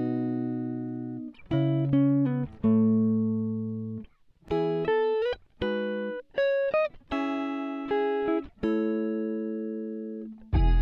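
Background music: a plucked string instrument playing a slow series of chords, each struck sharply and left to ring and fade.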